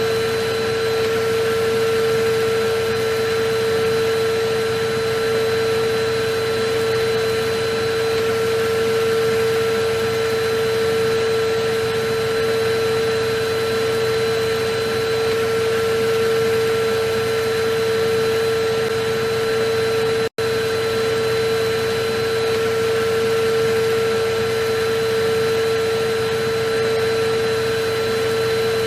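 Electric vacuum cleaner running steadily: a constant rushing noise with a steady whine, cutting out for an instant about twenty seconds in.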